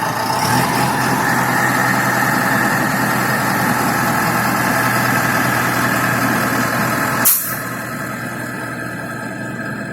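A self-loading concrete mixer truck's engine running steadily. A sharp click sounds about seven seconds in, after which the running is a little quieter and duller.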